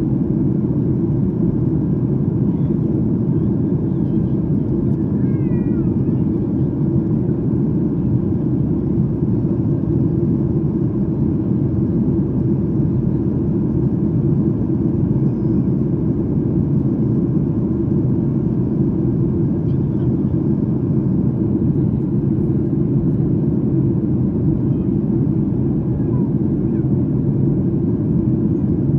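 Steady low rumble of an airliner cabin in flight: engine and airflow noise, unchanging throughout.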